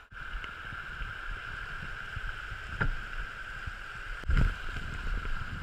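River water rushing and hissing past a drifting inflatable raft, with wind buffeting the microphone as a low rumble. A brief knock comes near three seconds in, and a louder low thump just after four seconds.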